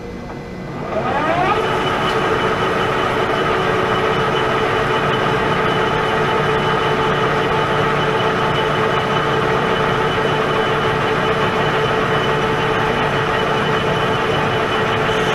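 Pratt & Whitney Model B metal lathe coming up to speed about a second in, its tones rising, then running steadily with a gear whine while taking a power-fed turning cut on a stainless steel bar.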